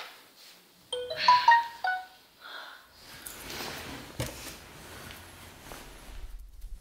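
Smartphone message notification chime: a quick run of several bright notes about a second in. It is followed by a soft rustle with one knock, and a low hum comes in near the end.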